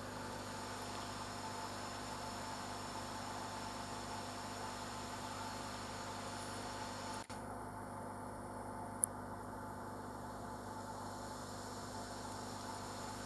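Steady electrical hum made of several constant tones. There is a momentary dropout about seven seconds in and a single faint tick about two seconds later.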